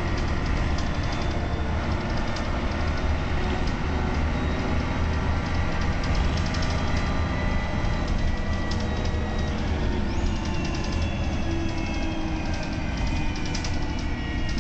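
Cabin noise of a moving 1994 Mercedes-Benz O405GN articulated bus: the OM 447h six-cylinder diesel running with a steady low drone, and fittings rattling. About ten seconds in, a whine starts rising in pitch.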